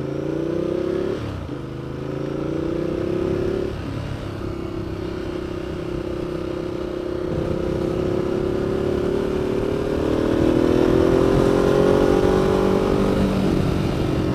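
Ducati Multistrada 1200's L-twin engine accelerating. It climbs in pitch and drops sharply at two upshifts, about a second and about four seconds in, then rises slowly for a long stretch in the higher gear before easing off near the end.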